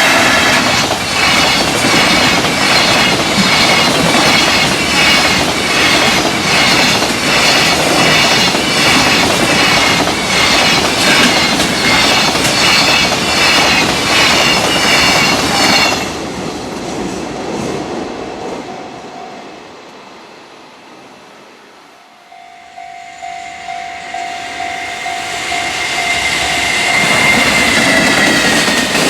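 Freight train passing at speed over rail joints, its wheels clattering in a steady, even rhythm over the joints. The sound cuts off sharply about 16 seconds in as the last wagons go by and fades away. Near the end a steady tone sounds and the rumble of another train swells as it approaches.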